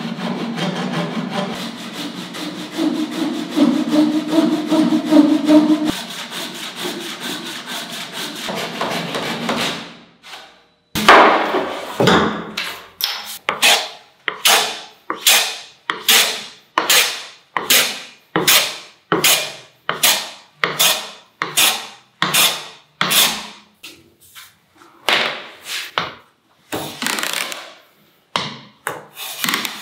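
Japanese pull saw cutting through a wooden board in fast, steady strokes, stopping about ten seconds in. Then a metal hand plane taking shavings off a board, one long stroke about every second.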